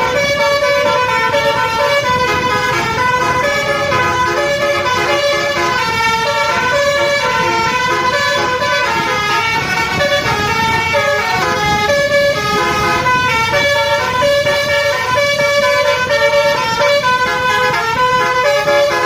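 Bus basuri 'telolet' horn, a set of air trumpets playing a tune of held notes that step up and down without a break, over a low rumble.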